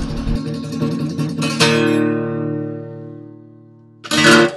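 Acoustic guitar music: a strummed chord rings out and fades over about two seconds, then a final short strum near the end cuts off abruptly.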